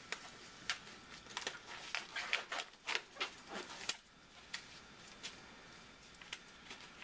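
Disposable exam gloves being pulled onto the hands: a run of irregular rustles and small snaps of the glove material during the first four seconds, then only a few faint handling ticks.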